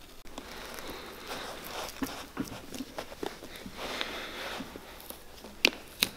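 Knife blades cutting and scraping at the leather sole and heel of a worn cowboy boot during sole removal: uneven scraping with scattered small clicks, and two sharp clicks near the end.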